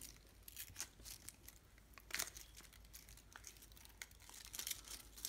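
Peeled-off protective film from a Bahtinov focusing mask crinkling and crackling as it is crumpled and handled in the hand: faint, scattered crackles, with one sharper crackle about two seconds in and a busier stretch near the end.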